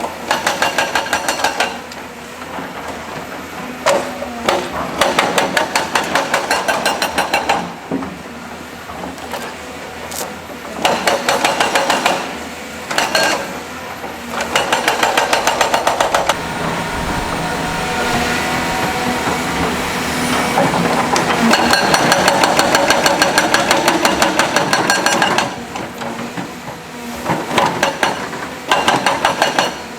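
Rapid percussive hammering in repeated bursts of one to three seconds, over a steadily running diesel engine: a hydraulic rock breaker or rock drill at work on construction equipment.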